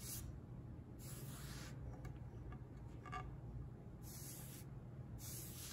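Soft swishes of a paintbrush drawn in long strokes along a painted 2x4, spreading a thin coat of spar urethane, several strokes about a second apart.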